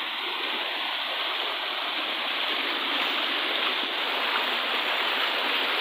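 Shallow river rushing over rocks close by, a steady rush of water.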